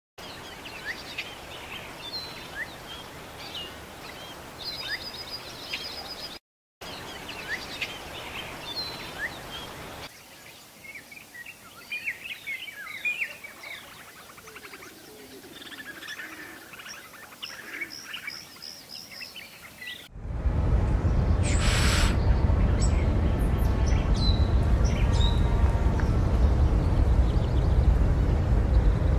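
Small birds chirping and calling in quick short notes over a steady background hiss. About twenty seconds in, a loud, low rumbling noise takes over.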